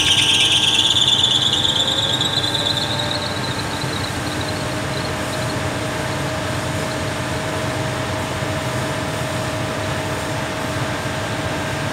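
Blower fan of a floor-standing air conditioner starting up in fan-only mode with the compressor off. A high whine starts suddenly and rises slowly in pitch as the fan spins up, fading over the first few seconds. A lower tone climbs and settles into a steady running hum.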